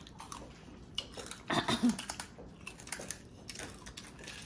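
Crispy deep-fried pork rind (chicharon) being bitten and chewed close to the microphone: a run of sharp crunches, loudest about a second and a half in.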